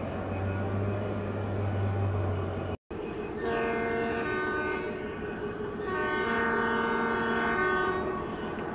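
O scale three-rail model freight train rolling over the track with a low steady hum, then a model diesel locomotive's electronic horn sounds twice, a shorter blast and then a longer one, over the running train.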